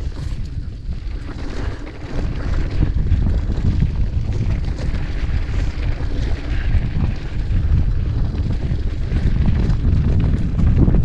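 Wind buffeting the action camera's microphone in a loud, uneven low rumble as a mountain bike rides down a dirt singletrack, with faint knocks and rattles from the bike over the bumpy trail.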